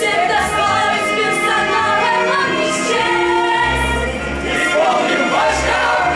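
A stage musical number: a group of voices singing together in chorus over musical accompaniment with a bass line.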